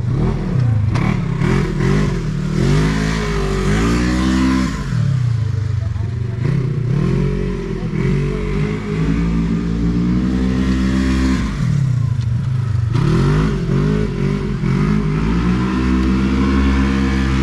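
Side-by-side UTV engine revving up and down again and again, its pitch climbing in several long throttle surges and dropping back between them as it runs a barrel course around cones.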